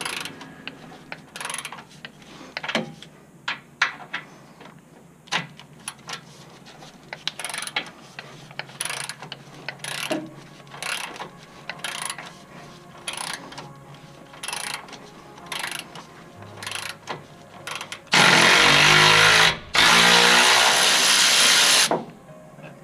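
Cordless electric ratchet running on a bolt in two loud runs near the end, a short one and then a longer one with a brief pause between. Before that, scattered metal clicks and clanks from tools and parts being handled.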